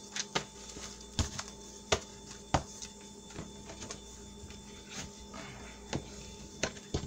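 Folded bundles of paper being handled and laid down on a cutting mat: a scattering of short, sharp taps and light paper rustling over a faint steady hum.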